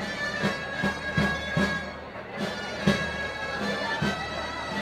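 Dolçaina (Valencian shawm) playing a loud, reedy melody over a tabalet drum beating about three times a second, the traditional accompaniment to a muixeranga human tower. The melody breaks off briefly about two seconds in.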